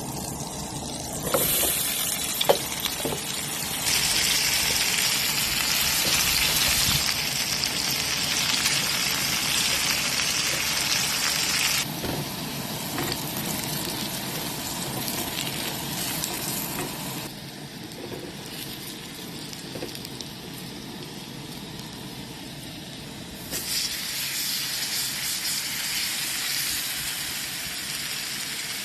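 Steak and potatoes sizzling in a pan on a Coleman propane camp stove, a steady frying hiss that jumps louder or quieter abruptly a few times. A sharp clack about two and a half seconds in.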